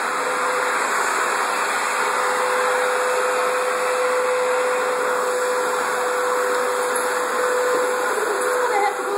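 Canister vacuum cleaner running steadily: an even rushing of air with one constant motor whine.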